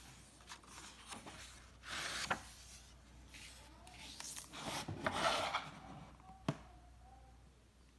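Faint handling of a paper book as it is closed and set aside: cover and pages rubbing and scraping, with a sharp click about two seconds in and another near the end.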